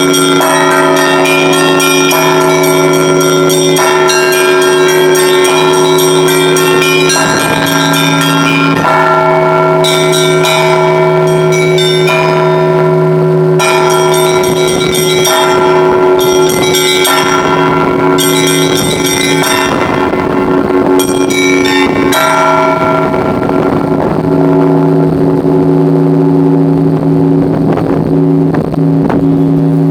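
Russian church bells rung by a single bell ringer: the deep, sustained hum of the large bells under rapid, dense chimes of the small bells, which thin out in the last third.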